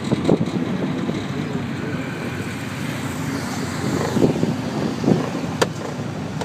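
Ride in a Cocotaxi: its small engine runs steadily under wind and road noise, with passing traffic around it. A single sharp click comes a little over five seconds in.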